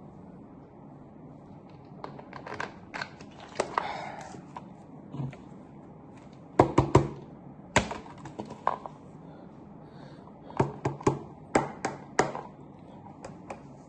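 Irregular sharp taps and knocks in small clusters, the loudest about halfway through and another run near the end.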